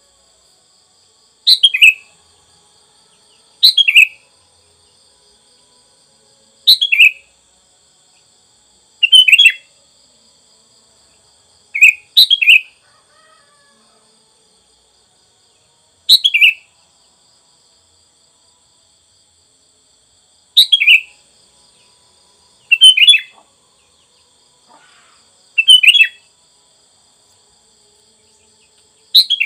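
Sooty-headed bulbul (kutilang) calling: about ten short, loud phrases a few seconds apart, each a quick run of notes dropping in pitch. A faint, steady high insect drone runs underneath.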